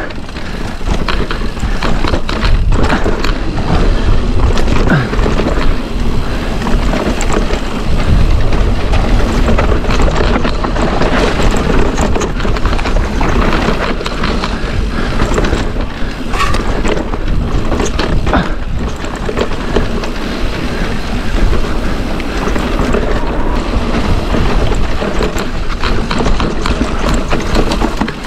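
Mountain bike descending a rough, rocky trail: a constant rush of wind on the action camera's microphone, with tyres rumbling over rock and many sharp knocks and rattles from the bike.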